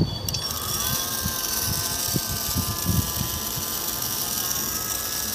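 Small electric motor in a pink toy appliance running: a steady high whirring hiss with a thin whine that rises briefly as it spins up just after the start. Light knocks of the plastic toy being handled sound underneath.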